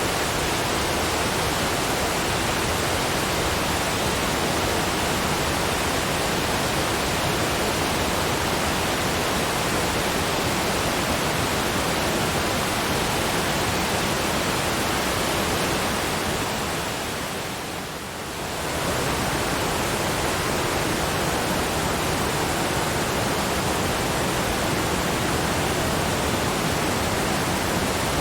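Waterfall's falling water making a steady, even rush, dipping briefly in level about two-thirds of the way through before returning to full strength.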